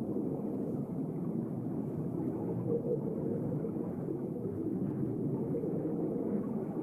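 Steady, muffled low rumble of underwater ambience, with no distinct events or rhythm.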